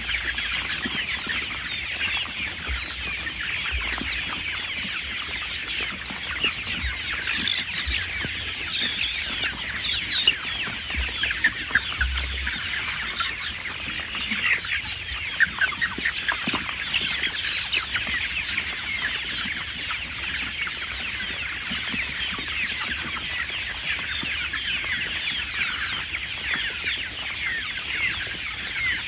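Large flock of 37-day-old chickens peeping and cheeping, many high calls overlapping in a steady chorus.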